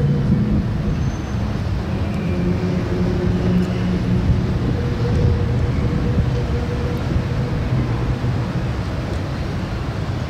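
Steady outdoor background noise with a low, engine-like hum that comes and goes, typical of traffic.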